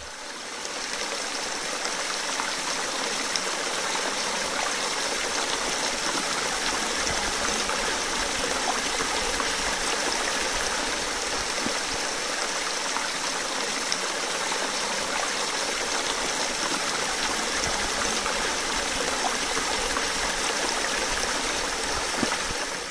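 Small rocky stream running steadily over stones, water trickling and splashing down between mossy boulders in an even hiss.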